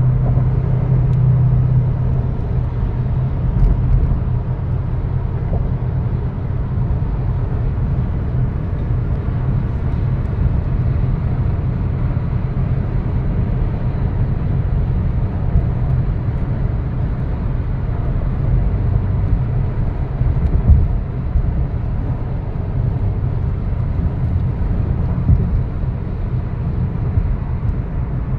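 Car driving at highway speed: steady low road and tyre rumble with engine drone, heard from inside the moving car, with a brief louder jolt about twenty seconds in.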